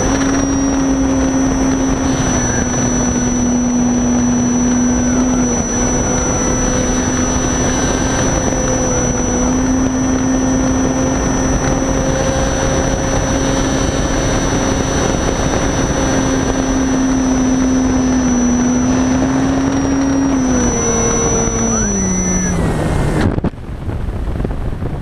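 Reichard Blizzard RC glider's motor and propeller running steadily at climb power with a high whine, picked up by a camera on board the model. About 20 s in the pitch drops as the motor is throttled back, and it cuts off about 23 s in, leaving wind rushing past the model as it glides.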